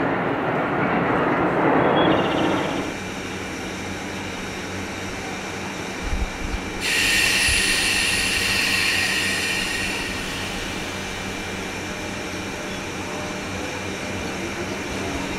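JNR 201 series electric train's thyristor armature chopper control unit: a couple of low knocks, then a sudden high electrical whine that holds for about three seconds and fades, over a steady low hum. Before that, a louder rushing train noise dies away in the first few seconds.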